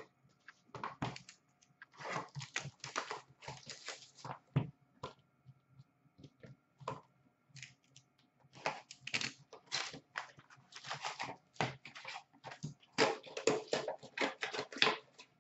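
Handling of cardboard trading-card boxes and foil packs: a sharp knock at the start as a box is set on the glass counter, then irregular rustling, crinkling and clicking as an Upper Deck SPx hockey box is opened and its packs pulled out, busiest near the end.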